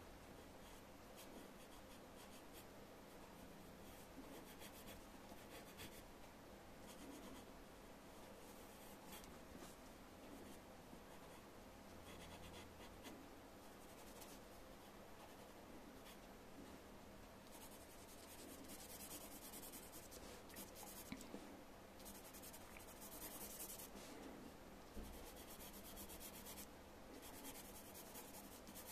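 Pencil scratching on paper in short drawing and shading strokes, faint, coming in brisker, louder runs in the second half.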